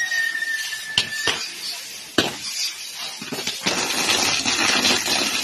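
Castillo fireworks tower burning: a whistling firework's tone sinks slightly and is cut off by a bang a little over a second in, followed by another sharp bang. From about three and a half seconds, a loud hissing spray of sparks.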